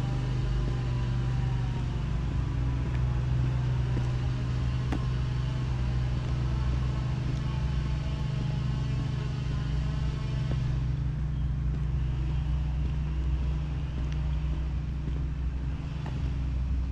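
Street traffic: a motor vehicle's engine running steadily close by, a low, even hum. A higher hiss drops away about eleven seconds in.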